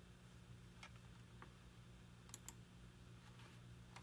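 Near silence: quiet room tone with a faint low hum and a few faint, scattered clicks.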